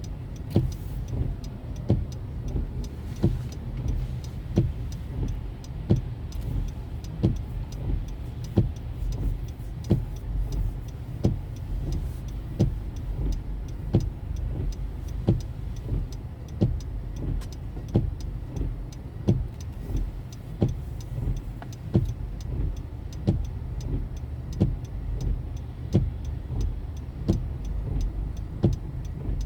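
Car driving, with a steady low rumble of engine and road noise and a regular sharp click about one and a half times a second.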